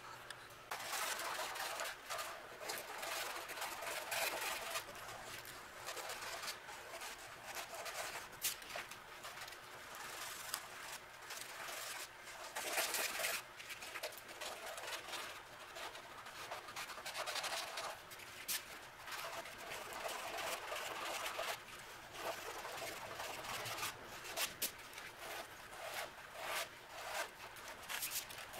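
Hand rubbing and sanding over cured body filler on a pickup body panel: repeated scratchy back-and-forth strokes, uneven in loudness, with a few light clicks.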